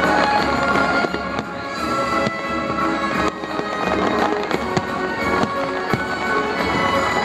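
Aerial fireworks bursting and crackling in quick succession, heard over music with held tones.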